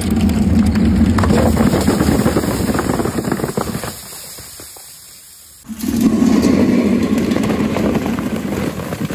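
Many soda bottles and cans crashing, rattling and bursting against a board in a dense crackling clatter, with fizzing spray. Two bouts: the first fades out, and the second starts suddenly about five and a half seconds in.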